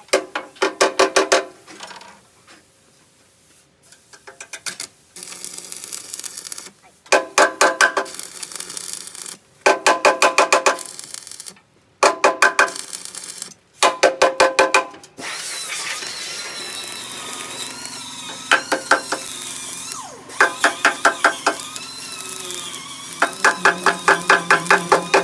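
Background music in short, rhythmic phrases of quick repeated notes, with a wavering melody line in the middle stretch.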